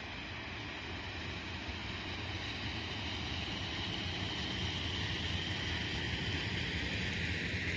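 EU07 electric locomotive running light during shunting, passing with a steady rumble of wheels on rail and motor noise. A higher hiss builds up toward the end.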